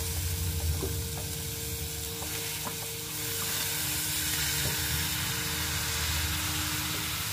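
Fresh spinach and dill leaves dropped into hot oil with fried onion, potato and spices in a kadhai, sizzling, with light clicks of a steel spoon scraping them off a steel plate. The sizzle grows louder about three seconds in as more leaves go in.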